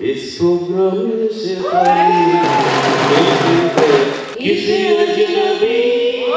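A man singing a song into a handheld microphone, amplified through a hall's sound system, with long held notes and sliding pitch, including a rising note about two seconds in.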